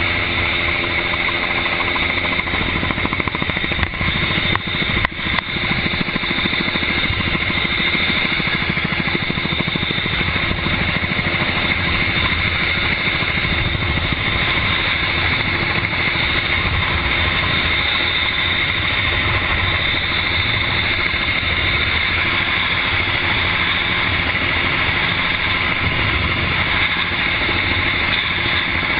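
Helicopter in flight, heard from its open door: a steady loud rush of engine, rotor and wind noise with a constant high whine on top, and a couple of brief knocks about four to five seconds in.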